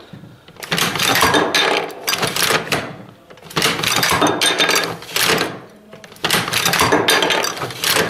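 Double-size cutaway classroom training model of a Browning 1919A4 machine gun being cycled by hand, its action run back and forth about three times. Each cycle is a couple of seconds of metal clanking and rattling as the bolt and feed mechanism strip dummy rounds from the cloth belt and kick them out the bottom of the receiver.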